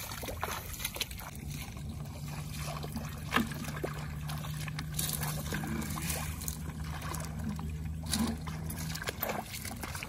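Rustling and clicking of grass and dry palm fronds being handled and walked through, over a steady low motor hum that starts about a second in and stops near the end.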